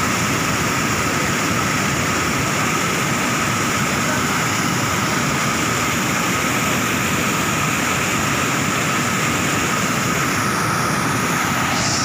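Muddy floodwater pouring over a concrete weir in a steady, unbroken rushing roar.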